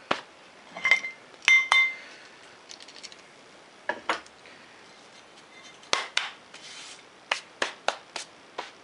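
Metal clinks and knocks from a clamp being undone and a steel angle plate and aluminium block being handled on a drill press table. About a dozen separate sharp taps, two of them about one to two seconds in ringing briefly.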